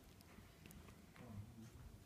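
Near silence: faint room tone with a few small clicks and soft rustles.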